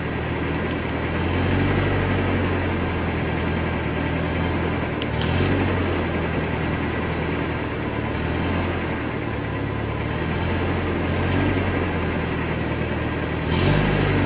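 A motor running steadily at a low pitch, briefly louder near the end.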